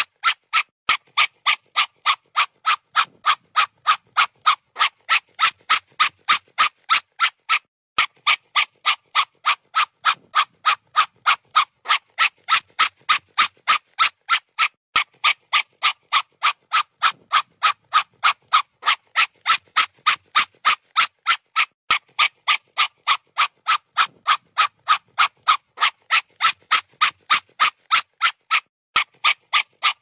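German Shepherd dog panting: quick, even, breathy pants at about three a second, with a few brief breaks in the rhythm.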